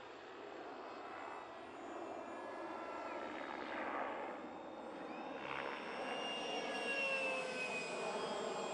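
Electric ducted fan of a model F-16 jet whining in flight, its high whine sliding down in pitch and growing louder, loudest about seven seconds in.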